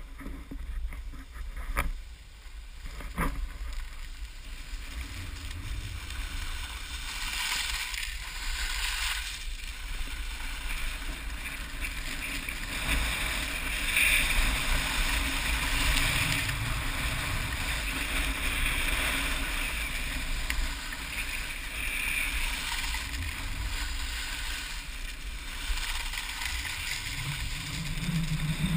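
Wind buffeting the action camera's microphone with the hiss and scrape of edges sliding over packed, groomed snow. The scraping swells and fades with the turns. A couple of sharp knocks sound near the start.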